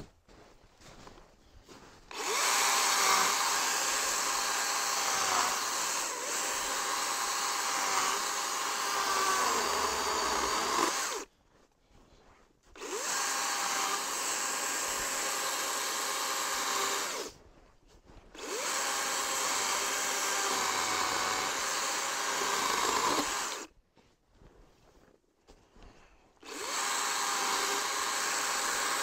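DeWalt battery-powered chainsaw running and cutting through a downed log: four runs of steady electric motor whine, each stopping briefly before the next cut.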